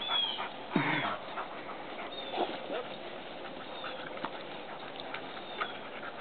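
Dogs wrestling in play on grass: scuffling and patter of paws, with a short dog vocalization that falls in pitch about a second in.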